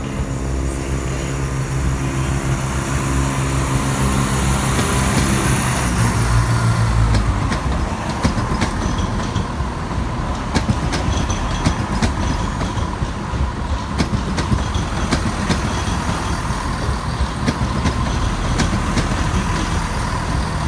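ScotRail Class 170 Turbostar diesel multiple unit pulling out and passing close. For the first seven seconds its underfloor diesel engines drone under power. After that the wheels rumble and click over rail joints and points as the carriages roll by.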